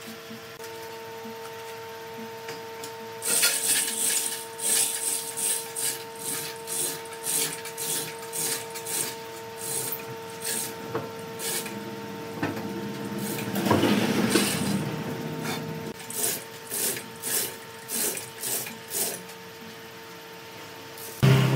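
Hand-pulled chain hoist clattering in short bursts, about one to two a second, as its chain is worked to move a heavy log hanging in slings, with a longer, louder stretch of clatter in the middle. A steady low hum runs underneath.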